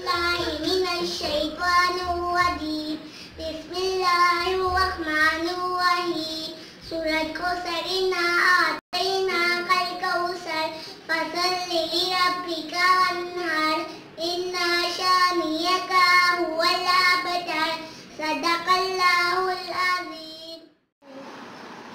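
A young girl singing a melodic recitation solo and unaccompanied, in phrases with short breaks between them. She stops about a second before the end.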